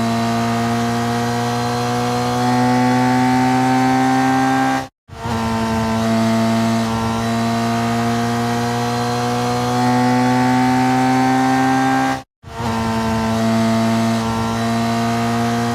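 Racing motorcycle engine held at high revs, its pitch climbing slowly and steadily. It cuts off abruptly twice, about five and twelve seconds in, each time for a split second, then comes back at a lower pitch and starts climbing again.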